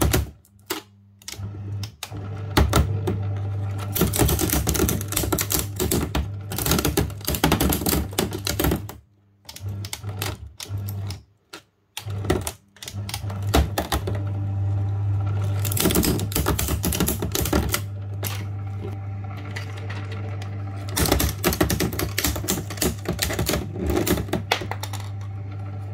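Fellowes Powershred 67Cs paper shredder running with a steady motor hum while its cutters crackle and chatter through thin strips of an old DVD player's parts. The motor cuts out briefly three times in the first half, about a second in and twice around ten to twelve seconds in, then starts again and runs on.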